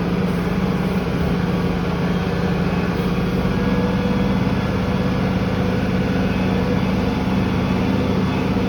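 Tractor engine running steadily under load, pulling a field cultivator, heard from inside the cab with its air conditioning on.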